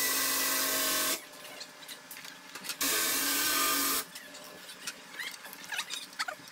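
A small power tool running with a steady whine in two runs: the first stops about a second in, and the second lasts about a second from around the three-second mark. Between and after the runs there are light clicks and rattles of parts being handled.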